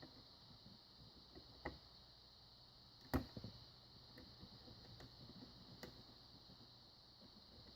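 Faint, scattered clicks and ticks of lock picking on a Black & Decker padlock: a pick and tension wrench working the pin stack, with the loudest click a little past three seconds in. A steady faint hiss runs underneath.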